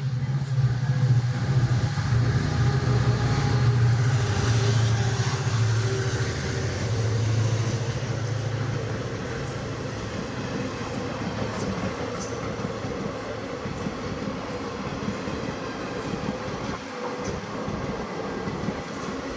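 Diesel locomotive engine running with a deep drone that fades after about nine seconds, leaving the steady rumble and rattle of the train rolling on the rails.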